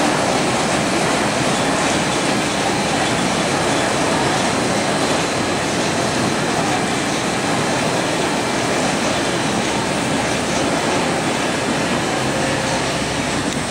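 Steel roller coaster chain lift hauling a train up the lift hill: a steady mechanical running noise of chain and track that gets a little quieter toward the end.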